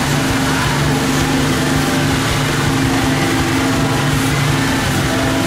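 Outboard motor running at a steady pitch as the boat moves along, with the hiss of churning wake water and wind.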